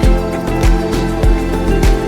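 Background music with a steady beat, sustained instrumental tones over a thump about every 0.6 seconds.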